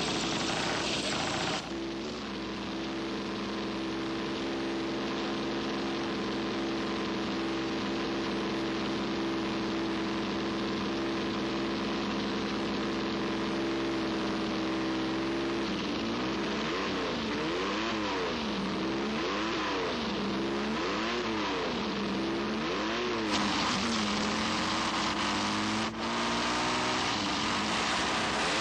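Racing motorcycle engine running at a steady fast idle, then revved up and down in a run of throttle blips, a little more than one a second, in the second half.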